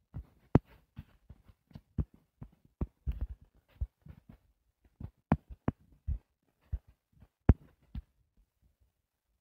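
Stylus tapping and knocking on a tablet's touchscreen while drawing: irregular short taps, two or three a second, a few of them much louder.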